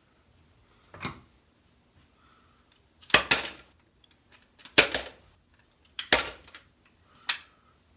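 Metal chainsaw engine parts clinking and clattering as they are handled and set down on a workbench: about five separate sharp clatters, the loudest near the middle.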